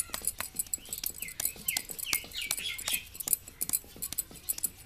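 Quick taps, several a second, on a hand-built clay pot being shaped, thinning out near the end. A small bird chirps a run of short falling notes in the middle.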